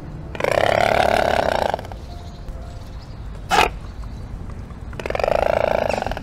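Swans calling: two long calls of more than a second each, with a short sharp call between them.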